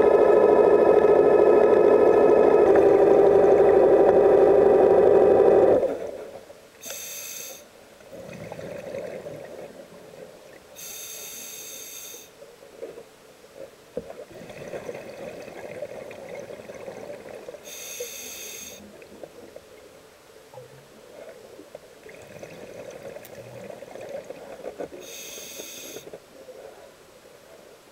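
A loud steady whine that shifts pitch slightly and then cuts off about six seconds in. After it, a scuba diver breathes through a regulator: a hiss of inhalation about every seven seconds, with bubbling exhalations between.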